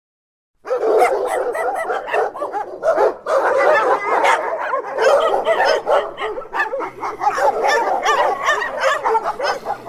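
Dogs barking and yipping in a rapid, nearly continuous stream that starts about half a second in, with one short break around three seconds.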